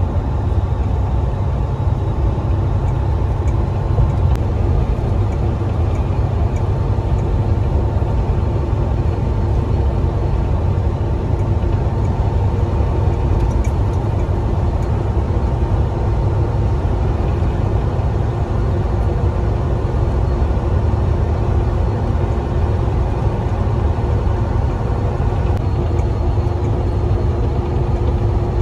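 Volvo 18-wheeler semi-truck cruising at highway speed, heard from inside the cab: a steady low engine and road drone with a faint steady whine over it.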